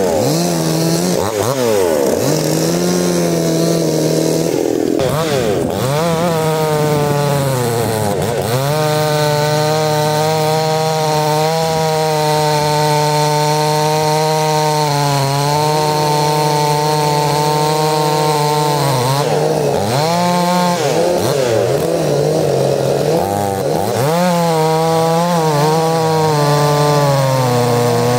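Two-stroke chainsaw running at high revs while cutting wood. Its pitch holds steady through the middle of the cut and sags and recovers before and after, where a second engine tone at a different pitch seems to overlap.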